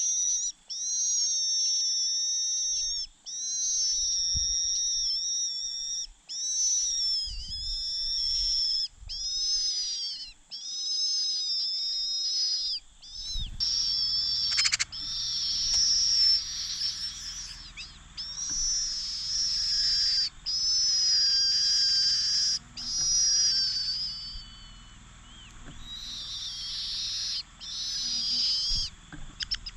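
Young cuckoo begging: high-pitched, wavering calls repeated one after another, each a second or two long with only short breaks between them.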